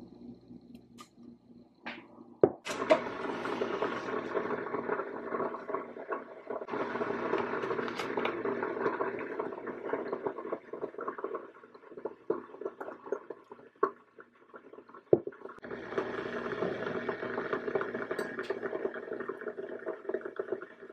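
Electric kettle heating water, a steady rumbling hiss that starts just after a sharp click, drops away for a few seconds in the middle, then comes back.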